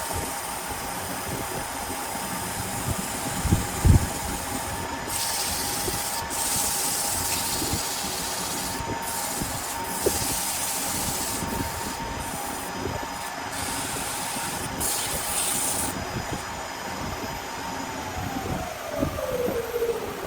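Wood lathe running with a steady whine and a constant noisy hiss, with hissing stretches of work on the spinning wood in the middle and a couple of sharp knocks about four seconds in. Near the end the whine drops in pitch as the lathe is switched off and spins down.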